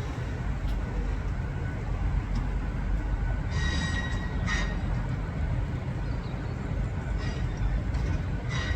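A train moving at the station, giving a steady low rumble, with brief high-pitched squeals about four seconds in and again near the end.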